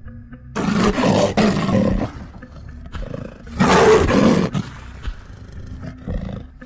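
Two loud, deep animal roars, the first starting about half a second in and lasting over a second, the second near the middle, with quieter growling rumbles between and after. The roars are presented as the recreated voice of an extinct animal.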